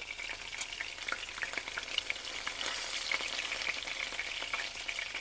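Food frying in hot oil in a pan: a steady sizzle with many small crackling pops.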